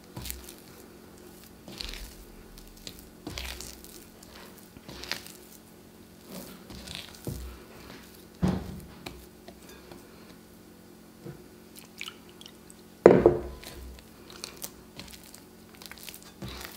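Hands kneading a wet, sticky 80%-hydration sourdough dough in a bowl: irregular soft squishing strokes every second or two, with one sharper, louder slap about thirteen seconds in.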